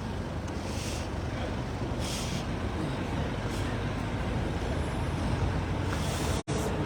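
Steady low rumble of a vehicle engine running, with a few short hisses about a second, two seconds and three and a half seconds in.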